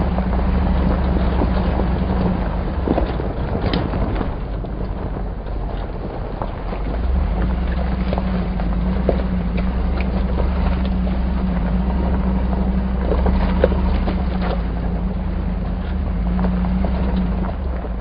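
Hummer H2 driving slowly over a bumpy dirt and gravel road, heard from inside the cabin. The engine hums low and steady under tyre and road noise, with scattered short knocks and rattles as it goes over bumps.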